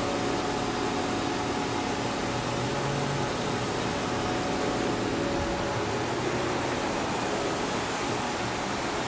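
Steady hum and rushing air noise of machinery and ventilation running in a machine shop, with a faint low drone and a few faint steady tones; no cutting or spindle run-up.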